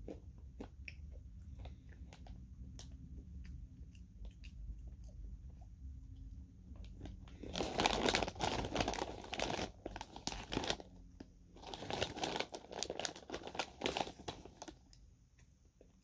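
Soft crunchy chewing of banana chips, then a plastic snack bag crinkling loudly in two long spells of a few seconds each as a hand rummages inside it for chips.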